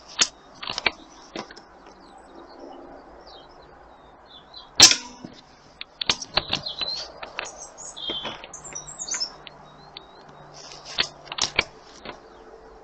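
A single air rifle shot, a sharp crack about five seconds in, with smaller clicks and knocks around it. Birds chirp in the background.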